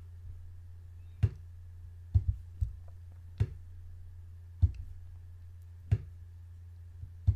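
Computer mouse clicks as points are picked and dragged on screen: about eight short, sharp clicks at irregular intervals, two of them close together a little after two seconds in, over a steady low hum.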